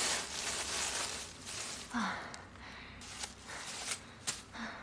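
Plastic carrier bags rustling and crinkling as takeout food is unpacked, fading after the first second or so, then a few light clicks and knocks of utensils near the end.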